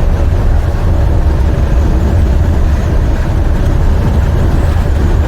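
Semi truck's diesel engine running steadily with a deep, even rumble.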